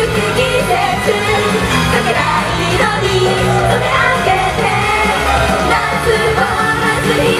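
Live idol-pop song: a female idol group singing into microphones over a loud pop backing track in a concert hall.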